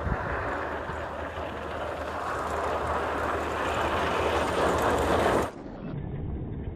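Snow plow truck going by in a blizzard: a low engine rumble under a rushing noise of wind and snow that grows louder. About five and a half seconds in it cuts off abruptly to a quieter, duller noise.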